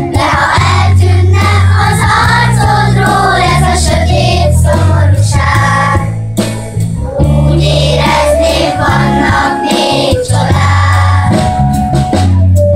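Children's choir singing a song in Hungarian over an instrumental accompaniment with a steady bass line.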